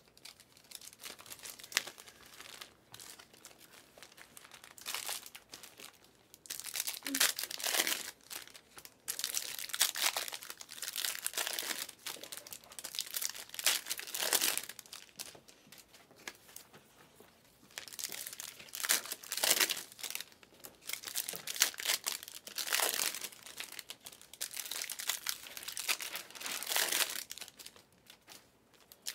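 Foil wrappers of 2022-23 Panini Select basketball card packs being torn open and crinkled in the hands, in repeated bursts of crackling with short quieter pauses between.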